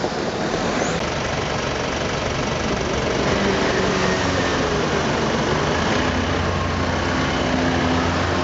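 Car engine idling steadily with a low hum, growing a little louder and fuller about three seconds in, over general street noise.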